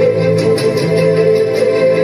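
Music with long held melody notes.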